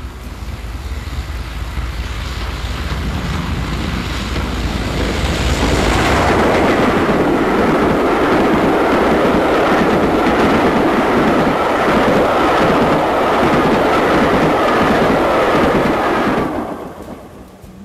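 Steam train passing at speed: a low rumble that builds over the first few seconds, is loud and steady from about six seconds in, then dies away quickly near the end.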